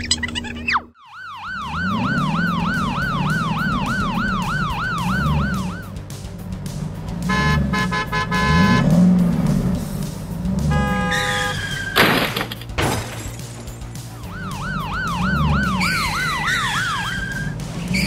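Police siren sound effect wailing up and down about three times a second, stopping and then returning near the end, over background music. A sudden crash-like hit comes about two-thirds of the way through.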